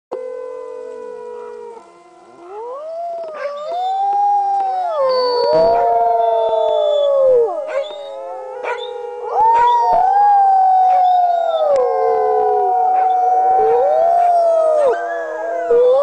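Several sled dogs howling together in chorus, their long overlapping howls rising and falling in pitch. The chorus drops briefly about two seconds in, then builds up louder.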